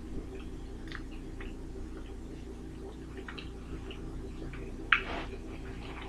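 Close-up eating sounds: chewing with small wet clicks and lip smacks, and a sharper, louder smack about five seconds in, over a steady low hum.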